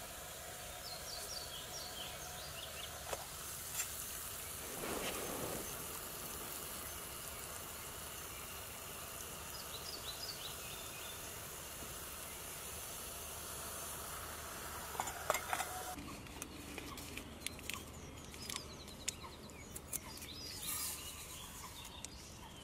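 Gas canister camping stove burner hissing steadily under a titanium pot of water coming to the boil. Light clicks and taps of metal cookware being handled from about two thirds of the way through.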